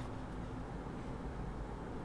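Steady low background rumble with a faint hiss and no keystrokes.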